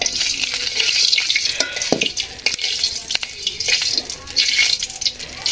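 Food sizzling in hot oil in a metal karahi, stirred with a metal spatula that scrapes and clicks against the pan. The sizzle swells and fades in waves as it is stirred.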